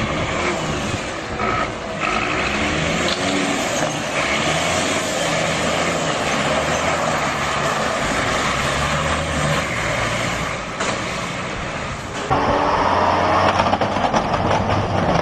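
Motor vehicle engines running, loud and steady, with an abrupt change to a different, louder engine sound about twelve seconds in.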